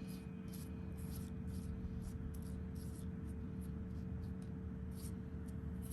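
A run of soft, irregular scratches, two or three a second, from hands at work in a seedling tray of potting mix, over a steady low hum.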